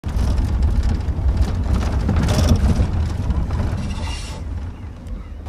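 An engine running with a steady low rumble, over a hiss that fades away near the end.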